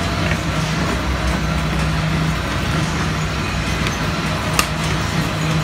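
Children's fairground carousel running: a steady mechanical hum under a wash of noise, with one sharp click about four and a half seconds in.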